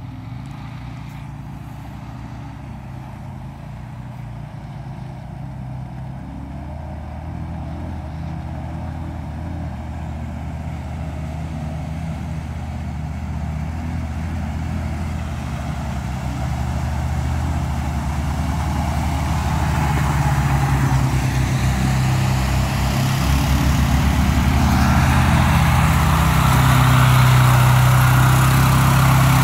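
ATV engines running, growing steadily louder as the four-wheelers approach; one runs close by through the mud near the end.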